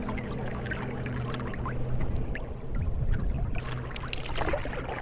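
Paddle strokes in water: splashing with a scatter of small drips, the louder splashes about two and three seconds in.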